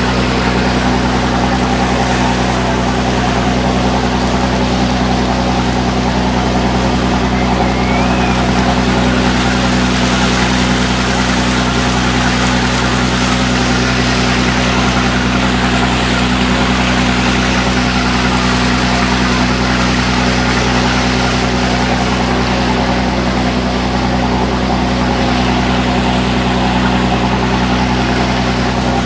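A small motorboat's engine running at a steady speed, a constant low drone, over a hiss of water and wind.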